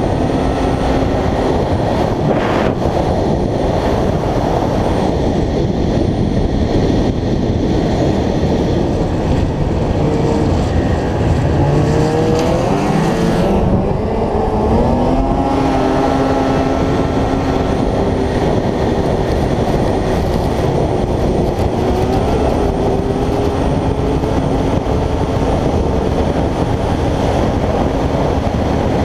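Ski-Doo snowmobile engine running at speed under a loud, steady rush of wind and track noise. Its pitch climbs between about 11 and 16 seconds as it accelerates, then holds steady.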